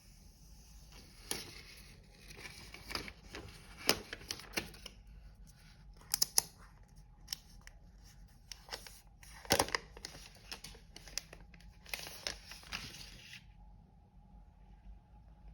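Packaging of an iPad Pro box being torn, rustled and handled, with a series of sharp clicks and taps; the handling stops near the end.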